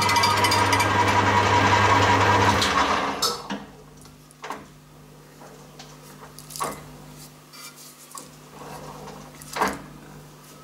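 Metal lathe running a facing cut across a cast aluminium table, a loud, steady machining noise with a low hum. About three seconds in the noise drops sharply as the cut ends and the machine shuts down. A faint low hum and a few light knocks follow.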